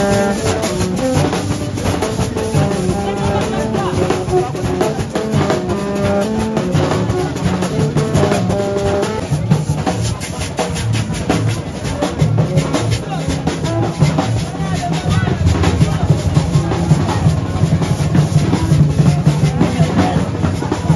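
Hand-played street procession drums beating a quick, steady rhythm, with a pitched melody carried over them.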